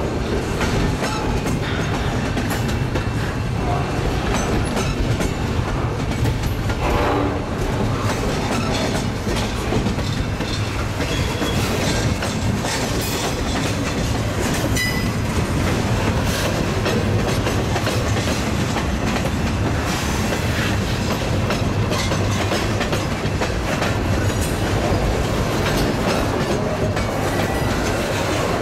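Loaded double-stack intermodal well cars rolling past close by. Their steel wheels run over the rails with a steady rumble and a continual clickety-clack of clicks.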